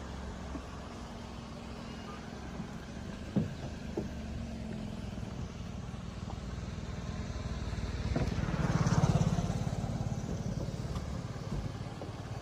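A car engine idling with a steady low hum, with two light knocks about three and four seconds in. A vehicle passes by, swelling to its loudest about nine seconds in and then fading.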